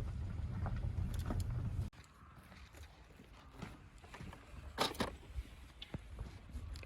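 Low steady rumble of a car on the move, cutting off abruptly about two seconds in. It is followed by scattered light clicks and knocks, the loudest about five seconds in.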